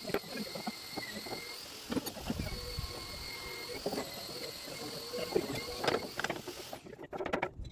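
Angle grinders whining steadily in the background, with occasional metallic knocks from a steel pry bar levering at a stuck locomotive boiler-mount bracket.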